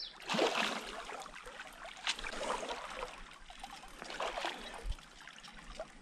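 Creek water trickling, uneven, with a few brief louder moments.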